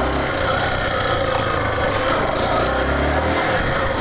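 Yamaha Factor 150 motorcycle being ridden, its single-cylinder four-stroke engine running steadily under a haze of riding noise.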